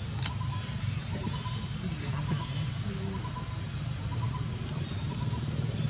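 Forest ambience: insects droning at a steady high pitch, with a faint, evenly pulsing call and a low rumble underneath. A single sharp click sounds just after the start.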